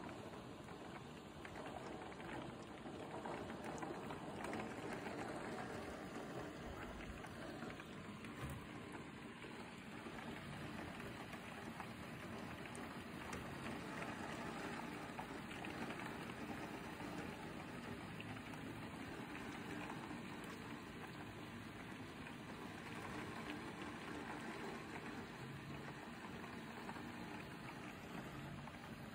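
Heavy rain falling steadily, a continuous even hiss of rain heard from behind a window.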